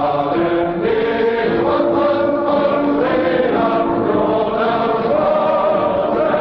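Choral music: a choir singing long held notes that step from one pitch to the next every second or so.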